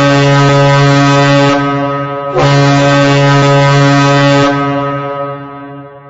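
Emergency Alert System-style alarm tone: a loud, low, buzzy horn-like tone sounded in long blasts. One blast falls away about a second and a half in, a second starts just after two seconds, and it trails off near the end.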